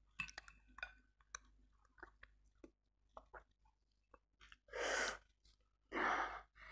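Soft chewing and small clicks of chopsticks against the bowl, then two slurps of black bean noodles, about five and six seconds in.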